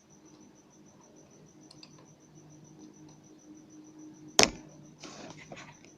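A single sharp click from a sewing machine's bobbin case latch about four and a half seconds in, followed by light handling clatter of the metal case.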